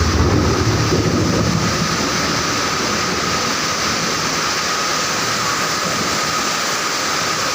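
Heavy rain pouring down in a strong wind, with a gust buffeting the microphone as a low rumble over the first two seconds or so.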